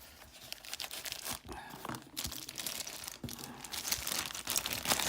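Crinkling and rustling of a sealed padlock packet being opened and handled, with irregular crackles and small clicks that grow busier toward the end.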